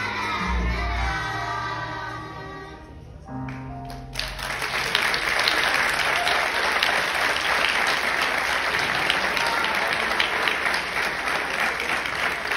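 A children's choir finishes a Christmas song with accompaniment, the last notes fading about three seconds in. About a second later an audience breaks into steady applause that carries on.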